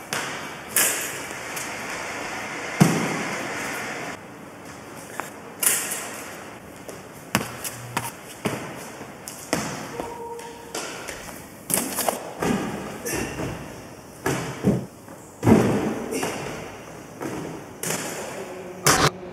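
Parkour runner's feet landing and pushing off wooden jump boxes, floor pads and mini trampolines: an irregular run of thuds and slaps, each with a short echo.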